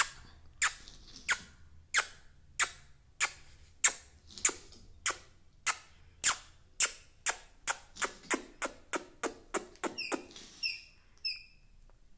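Pet parrot making a series of sharp, squeaky clicks, about one and a half a second and speeding up to about three a second, then a few short, high, falling chirps near the end.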